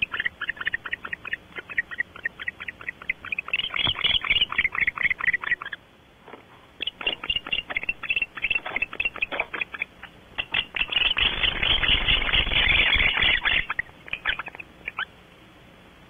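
Barn owl moving about inside a wooden nest box right next to the microphone: rapid runs of scratchy clicks and rustling from talons and feathers. There is a short lull about six seconds in, and a dense stretch of rustling past the middle.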